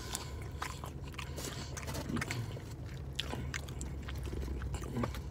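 Burger being handled in a paper-lined foam tray: scattered soft clicks and paper rustles over a low steady hum.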